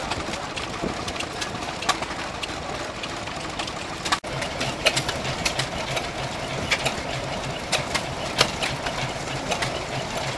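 Vintage stationary engines running with a steady mechanical chatter and sharp clicks from the valve gear. About four seconds in, the sound cuts to a horizontal single-cylinder open-crank engine with twin flywheels, running at a regular low beat of several strokes a second.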